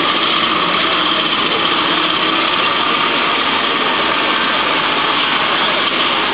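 Vehicle engine running steadily, mixed with the murmur of a crowd.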